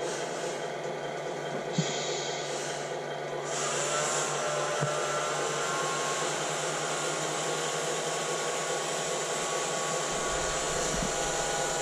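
Small electric motor in a radio-controlled model truck whirring. About three and a half seconds in it speeds up, rising in pitch and getting louder, then runs steadily.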